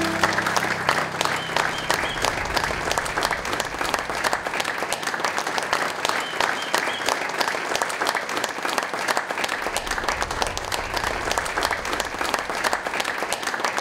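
A room full of people applauding, steady dense clapping that holds at an even level throughout.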